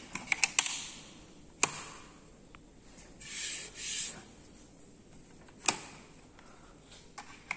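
Roll-up mosquito screen and its removable slide track being handled: a few sharp clicks and knocks of the frame parts, with two short sliding swishes a little past three seconds in.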